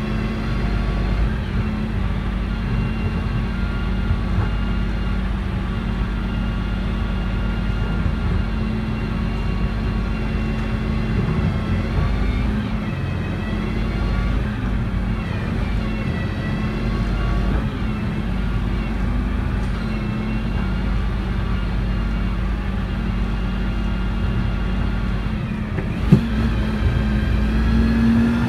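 Diesel engine of a Dennis Eagle refuse truck idling steadily, heard from inside the cab. There is a single sharp knock near the end.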